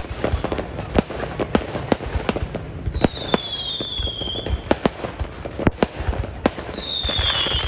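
Fireworks display: many sharp bangs and crackles over a steady rumble, with two high whistles falling in pitch, about three seconds in and again near the end.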